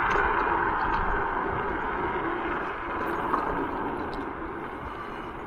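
Wind and tyre noise from a Zero 10X electric scooter rolling over asphalt, a steady rushing hiss with low rumble that slowly fades as the scooter eases off.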